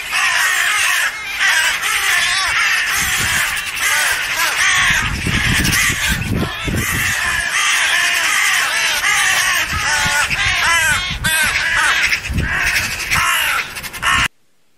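Crows and Eurasian magpies calling over one another, a dense run of loud caws and chattering calls from birds mobbing a pigeon on the ground. The calls cut off suddenly near the end.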